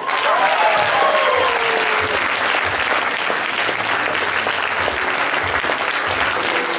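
Audience applauding steadily, greeting delegates as they stand. A voice is briefly heard over the clapping in the first two seconds.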